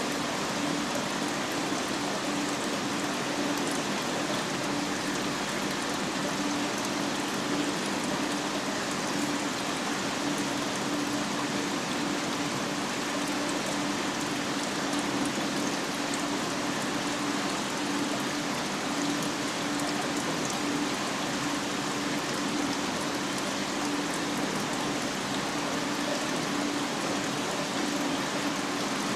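Steady rushing water noise of a marine aquarium's circulation, with a low steady pump hum underneath.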